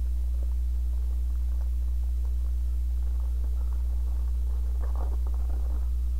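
Steady low electrical hum under faint crinkling and crackling of a plastic bag of model-kit parts being handled, busier about five seconds in.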